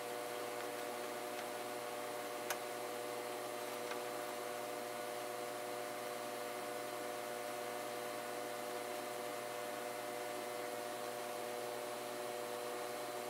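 Steady hum made of several held tones over a faint hiss, with one faint click about two and a half seconds in.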